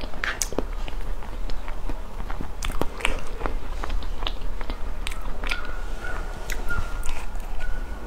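Close-miked chewing of a chocolate-crumble-topped crispy-shell cream puff: soft mouth sounds with irregular small clicks. The refrigerated shell is no longer crisp.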